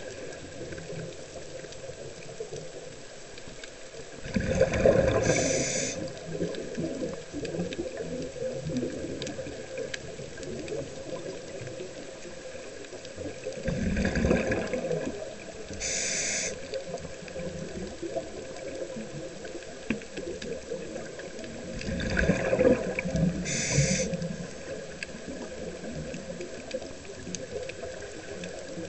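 Scuba diver breathing through a regulator underwater: three breaths roughly nine seconds apart, each a low rush of exhaled bubbles followed by a short hiss, over a steady underwater hiss.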